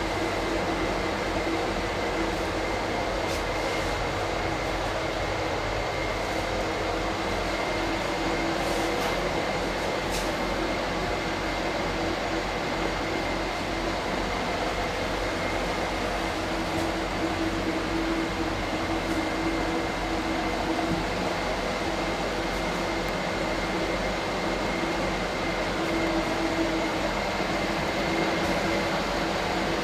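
Steady mechanical hum of the air conditioning inside an air-conditioned tram car, with a thin steady whine above it.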